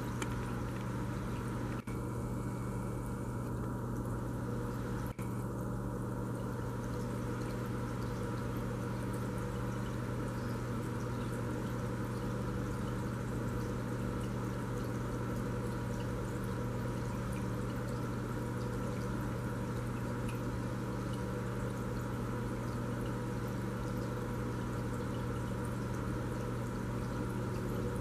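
Aquarium pump running steadily: a low constant hum under a continuous trickle of moving water.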